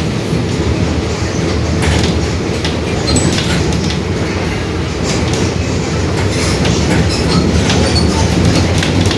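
Mercedes-Benz OF-1721 Bluetec 5 bus under way: steady diesel engine and drivetrain noise with a growl from the differential, and frequent short rattles from the body.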